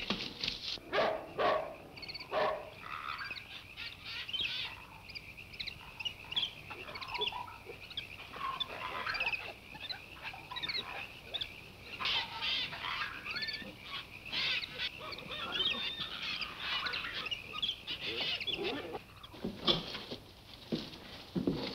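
A few knocks and scuffling at the start, then jungle birds chirping and squawking over and over, a film's stock jungle background.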